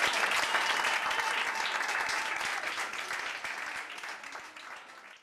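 Audience applauding, the clapping fading gradually and then cutting off abruptly at the end.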